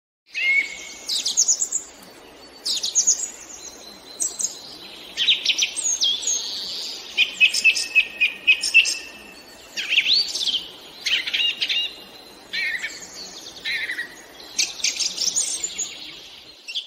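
Songbirds chirping and singing: short whistled phrases, quick rising and falling notes and rapid trills, coming in bursts with brief pauses between.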